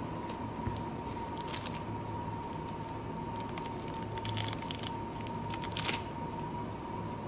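Clear plastic bag crinkling in several short bursts as it is handled open and a charging cable is drawn out of it, over a steady faint tone.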